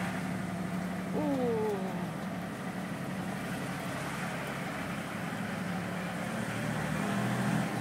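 Car engine and road noise heard from inside the cabin while driving, a steady low hum. About a second in, a short tone slides down in pitch above it.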